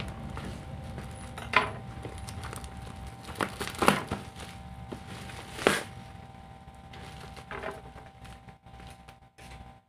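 Clear plastic bubble-wrap packaging crinkling and rustling as a parcel is unwrapped by hand, with five sharp crackles, the loudest about four and six seconds in.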